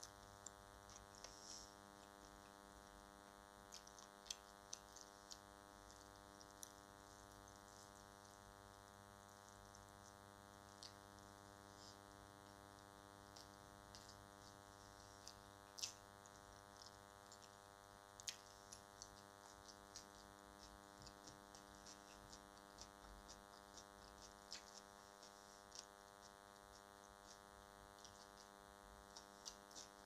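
Faint eating sounds of someone eating biryani with their fingers: small irregular mouth clicks and smacks, a few sharper ones, over a steady hum in the recording.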